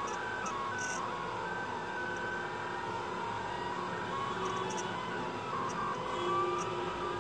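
Delta 3D printer printing: its stepper motors whine in short steady tones that jump from pitch to pitch as the print head moves, over a constant hum.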